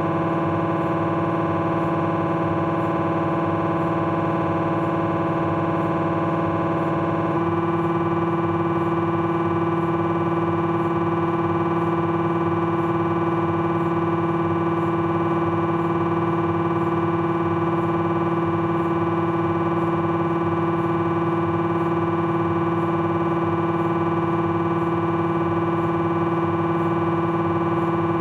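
Philips 1.5 T MRI scanner running a T1 axial fat-saturated abdominal sequence: its gradient coils give a loud, steady electronic buzz of several held tones. The tone changes slightly about seven seconds in.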